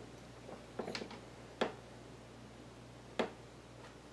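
Light handling noise: a few sharp clicks and taps as hands move the record player's chassis and reach into its wooden case. There is a small cluster about a second in, then single clicks at about one and a half and three seconds, over a faint low hum.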